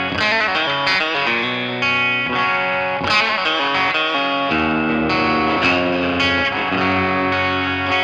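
Gillmore GFT 15 Telecaster-style electric guitar played through a Boss Katana amplifier. It plays a quick run of single notes, then slower held notes and chords ringing out from about halfway through.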